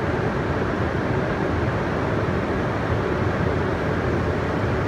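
H5-series Hokkaido Shinkansen train alongside the platform, giving a steady low mechanical noise with a hiss above it.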